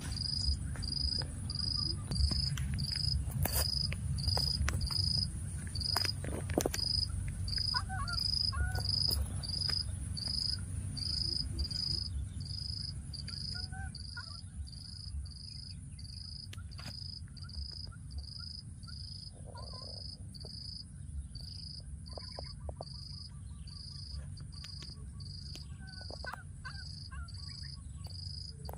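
Insect chirping in a steady rhythm, a high chirp a bit more than once a second, over a second insect's high, unbroken drone. A low rumble sits underneath, louder in the first half, with a few faint short calls here and there.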